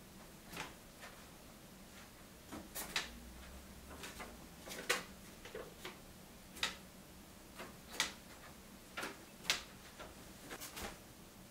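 Scattered light clicks and taps in a small room, about a dozen at uneven intervals.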